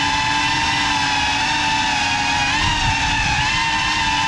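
Small FPV drone's brushless motors and propellers whining at a high, fairly steady pitch, dipping and rising slightly as the throttle changes, heard close from the drone itself.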